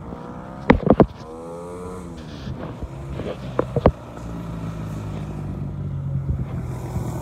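An engine's pitched whine falling in pitch between one and two seconds in, then a steady low engine hum from about four seconds on, with sharp knocks from the phone being handled just under a second in and again near four seconds.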